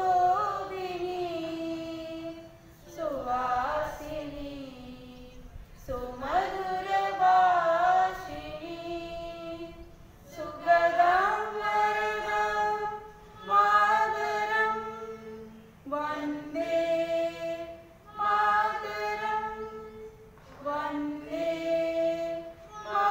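A woman singing unaccompanied into a microphone: slow sung phrases of two to three seconds each, ending on held notes, with short breaths between.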